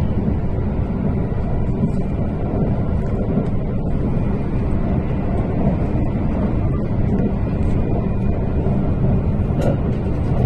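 Kintetsu 22000 series 'ACE' limited-express train heard from inside the passenger cabin while running: a steady low rumble of wheels on rails, with faint steady tones above it.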